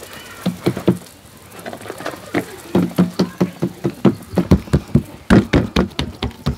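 Hands patting and slapping a round of layered flatbread dough flat on a table. A few pats come about half a second in, then quick, even patting at about five a second from a little under three seconds in.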